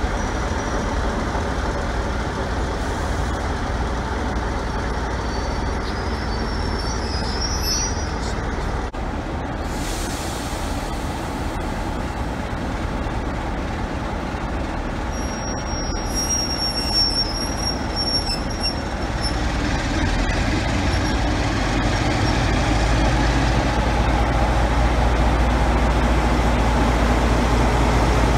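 Passenger coaches rolling slowly past with a steady rumble of wheels on rail and two brief high wheel squeals, then a Class 47 diesel locomotive (D1935) passing close, its Sulzer engine's low drone growing louder over the last several seconds.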